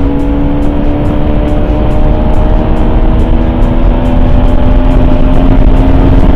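Motorcycle engine running at a steady, slowly rising pitch as the bike gently gains speed, with wind rumble on the helmet microphone.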